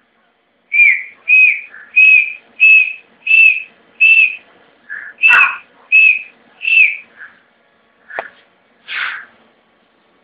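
Grey francolin (Dakhni tetar) calling: a run of nine loud, high whistled notes, about one and a half a second, each ending in a slight downward flick. Softer, lower notes fall between them and follow after.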